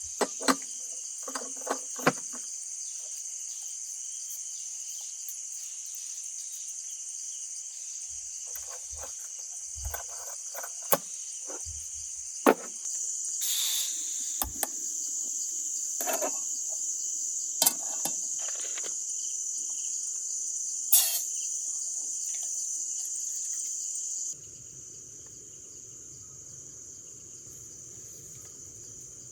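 Crickets trilling steadily in the night background, with scattered short clicks and knocks of things being handled. The background changes abruptly near the end.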